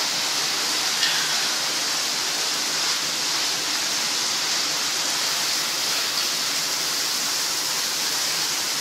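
Overhead rain shower running on its tropical shower setting: a steady hiss of falling water.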